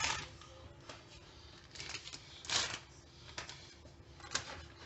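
Shredded lettuce being dropped by hand onto a plate of broken crunchy taco shells: about five short, dry, crackling rustles, the loudest about two and a half seconds in.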